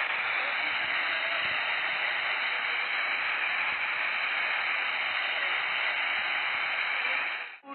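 Stage spark fountains hissing in one even, steady rush that cuts off suddenly near the end.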